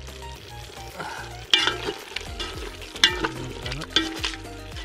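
A wooden spatula stirring chunks of pork curry in a large metal pot, with sharp knocks and scrapes against the pot about a second and a half in, at three seconds and at four seconds. The curry sizzles as it fries.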